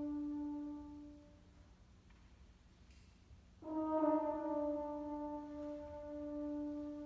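French horn ensemble holding a long note on one pitch, which fades away about a second in. After a short pause the horns come back in together with a sharp attack a little past halfway and sustain a note again.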